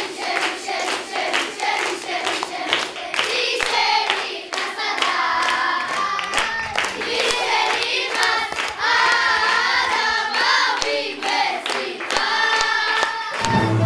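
A class of schoolboys singing together while clapping their hands in rhythm.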